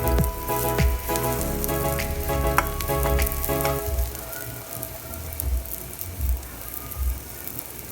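Food frying in hot oil in a pan, a steady sizzle with many small crackles. Background music with a steady beat plays over it, its melody dropping out about four seconds in.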